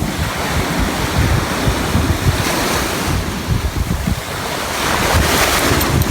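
Ocean surf washing onto the beach, swelling twice, with wind buffeting the microphone.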